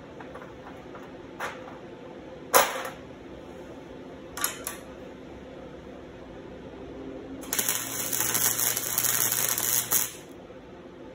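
A few sharp metallic clicks, then about two and a half seconds of electric arc welding on steel chain links: a steady crackling sizzle of the arc that stops abruptly when the weld ends.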